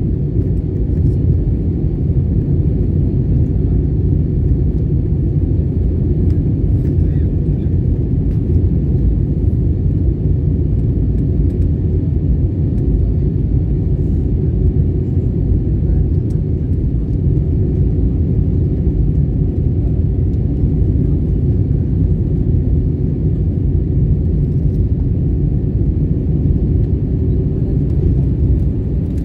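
Steady low rumble of an airliner in flight as heard inside the cabin: jet engine and airflow noise, unchanging throughout.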